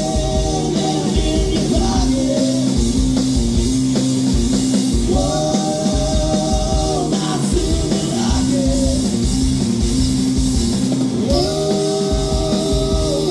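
Rock band playing live: drum kit and guitars over a steady beat, with long held melody notes that come back about every six seconds.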